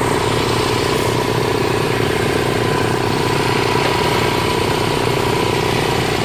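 Homemade post driver running steadily on top of a dock piling, an engine-powered hammer driving the piling in, with a fast, even machine rattle throughout.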